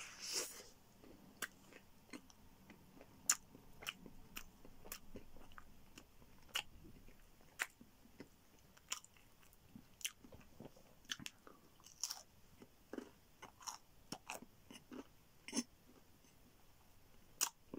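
A person biting into a slice of pepperoni pizza, then chewing it: a bite right at the start, followed by irregular sharp mouth clicks about once a second.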